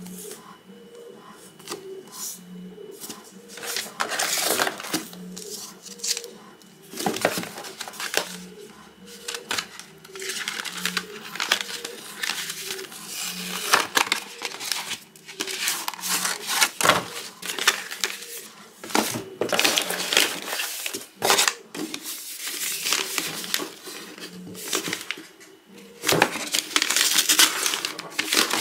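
Paper and cardboard rustling and crinkling as a shipping box is unpacked by hand: a card, a paper envelope and a paper-wrapped parcel lifted and shifted, in irregular bursts that grow denser and louder near the end.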